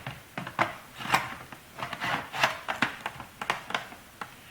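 Plastic laptop casing part being slid and pressed into place: a series of irregular clicks and taps with short scraping rubs of plastic on plastic.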